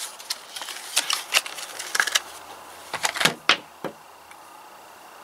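Small hard clicks and taps of a flashlight being opened and AA batteries being handled and loaded into it, about eight in the first four seconds and then quiet.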